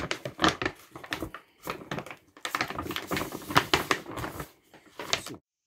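Large dry dog food bag crinkling and rustling as hands grip and fold down its open top: a quick, irregular run of crackles that stops suddenly near the end.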